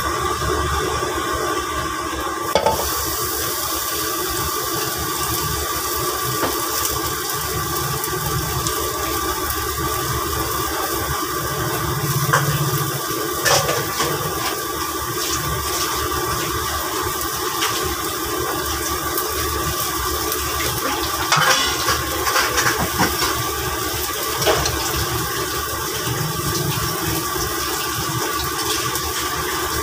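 Steady rushing roar of a gas wok burner running under a frying pan, with a few sharp clinks of metal utensils against the pan.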